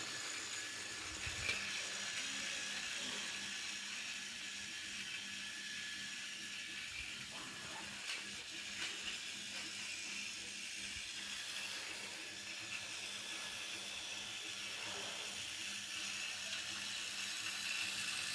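Battery-powered Fisher-Price TrackMaster Skarloey toy engine running along plastic track, a steady whirring of its small motor and gears. It grows louder near the end as the engine comes closer.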